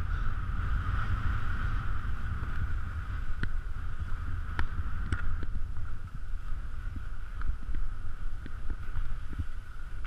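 Wind noise rumbling on an action camera's microphone during a ski descent, over the steady hiss and scrape of skis sliding on snow, with a few short sharp clicks.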